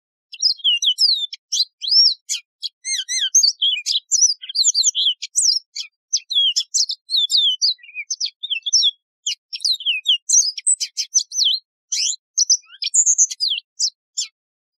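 Yellow-fronted canary (Mozambique serin) singing a long, unbroken, high-pitched song of quick, varied rising and falling notes. The song starts just after the beginning and stops shortly before the end.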